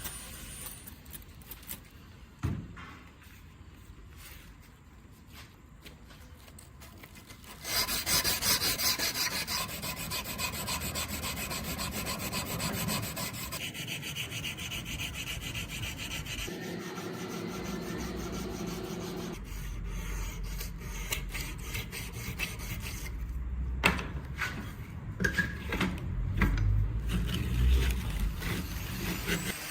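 Repeated rasping and rubbing strokes of hand-finishing work on the piece, quieter at first and louder from about a quarter of the way in.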